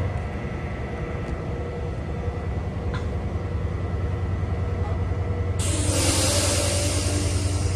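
NJ Transit passenger coaches rolling past close by with a steady low rumble of wheels on rail and a couple of faint clicks. About five and a half seconds in, a sudden loud hiss of air starts and keeps going.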